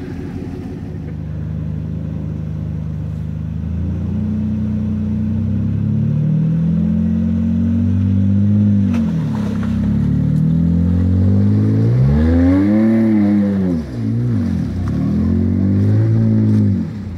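Four-wheel-drive engines revving under load as a Land Rover Discovery tows a Jeep Wrangler JK, bogged on a log, out of the mud on a snatch strap. The revs climb slowly at first, then surge up and down several times in the second half and drop off at the end.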